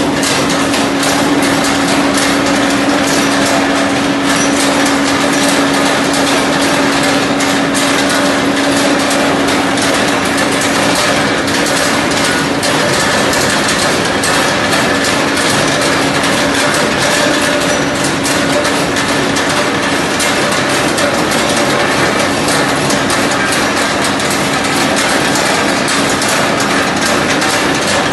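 Dry areca nut dehusking machine running: a dense, steady clatter of nuts and husks rattling through it over a steady motor hum.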